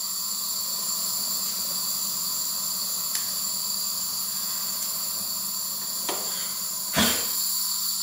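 Steady hiss of flammable R600a (isobutane) refrigerant escaping through a piercing pliers on a freezer's refrigerant line and burning as an open flame. It stops with a sharp knock about seven seconds in.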